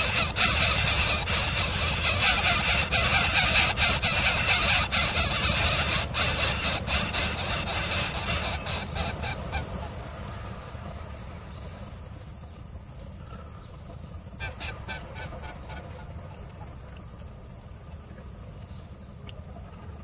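Greater coucals at the nest giving harsh, noisy calls. The calls are loud for the first eight seconds or so, then fade away, leaving a few faint high peeps.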